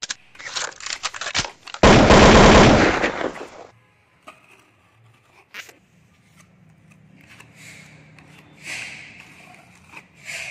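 Sharp taps, then a loud rapid rattle lasting about two seconds in the first few seconds. After that, softer scrapes of a pointing trowel working wet mortar into the gap at the base of a wall, over a faint steady hum.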